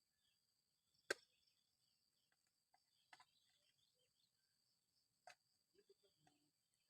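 Faint, steady chirring of insects such as crickets, with a few short sharp clicks, the loudest about a second in.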